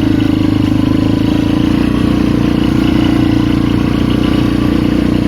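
Polaris Magnum 425 ATV's single-cylinder four-stroke engine running at a steady speed under way.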